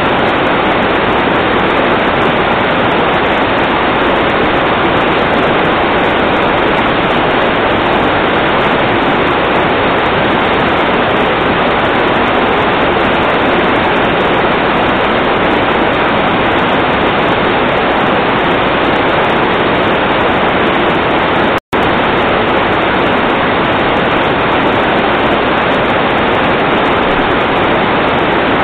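Loud, steady rush of water, as from floodwater pouring or a downpour, with no breaks except a momentary dropout to silence about 22 seconds in.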